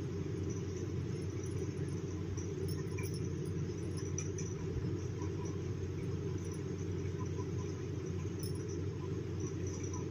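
Steady low background rumble, even and unchanging, with faint small ticks now and then.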